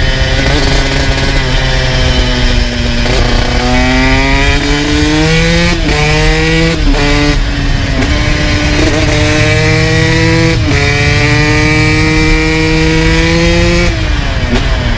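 2002 Honda CR125 single-cylinder two-stroke engine with a full FMF exhaust, running hard under way. Its pitch climbs and then drops sharply several times, as at gear changes, and falls away near the end as the throttle is closed.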